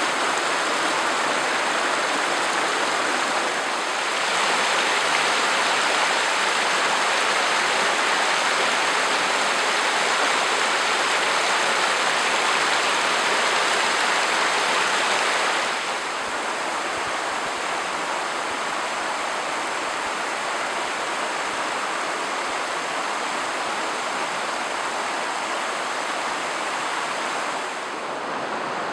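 Steady rushing of a river's flowing water (Hurricane River). It grows louder about four seconds in and eases back a little just past halfway.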